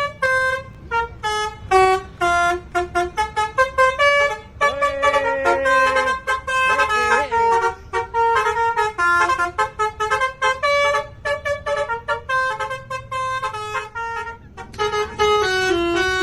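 Basuri telolet musical bus horn playing a fast tune of short, separate notes that step up and down in pitch, with a few longer notes held together partway through.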